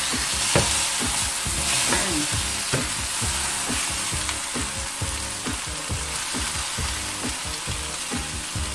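Chicken pieces sizzling in a hot stainless-steel Saladmaster skillet while a wooden spatula stirs them, with repeated scrapes and knocks of the spatula against the pan over the steady sizzle.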